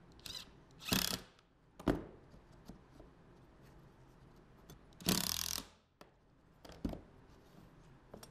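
Hand tools being handled on a plywood panel: a few short scrapes and sharp knocks, the longest scrape about five seconds in.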